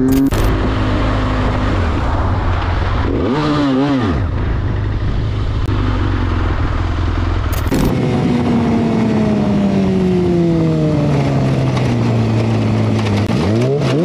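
Motorcycle riding at speed under heavy wind noise, the engine briefly revving up and back down a few seconds in. After a cut, the engine note falls steadily as the bike slows, then rises and drops again quickly near the end.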